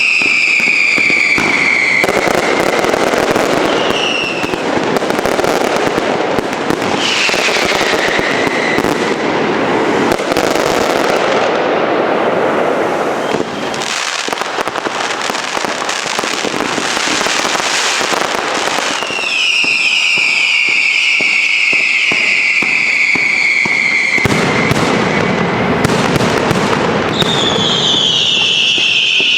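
Fireworks going off in dense, crackling volleys of bangs, with several whistling fireworks shrieking and falling in pitch. The longest whistle comes in the latter half, and another starts near the end.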